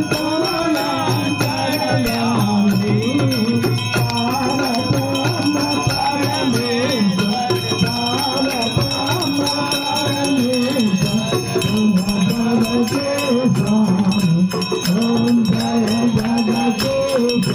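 Men singing a Hindu devotional aarti to Vishnu, with a dholak drum and ringing bells accompanying throughout.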